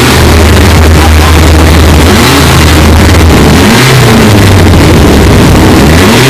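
Four-rotor Mazda 767B rotary racing engine running at a steady idle, then blipped up and falling back a couple of times in the second half. The recording is very loud and overloaded, so the sound is distorted.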